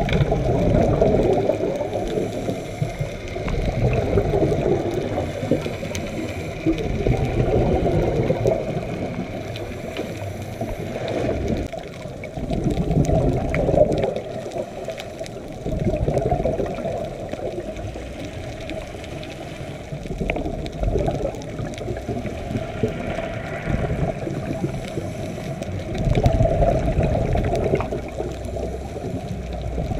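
A scuba diver's exhaled bubbles from the regulator gurgling underwater, swelling and fading every few seconds as the diver breathes. The sound is muffled, with almost nothing above a low rumble.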